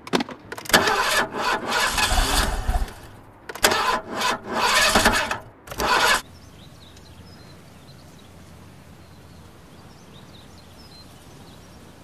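Car engine being cranked with the ignition key in three attempts, one after another, which stop abruptly about six seconds in. After that only a faint steady background hiss.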